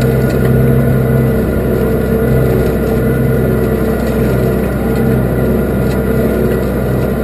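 Case 5130 tractor's diesel engine running steadily while ploughing.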